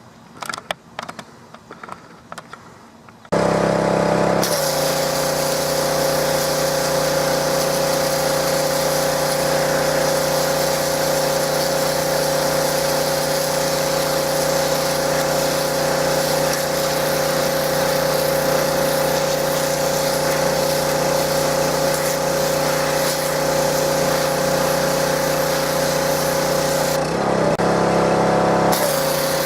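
Power Horse pressure washer's 6.5 hp engine running steadily under load with the loud hiss of the high-pressure spray, starting abruptly about three seconds in after a few light handling clicks. Near the end the spray cuts out for about two seconds, the engine note changing, then the spray resumes.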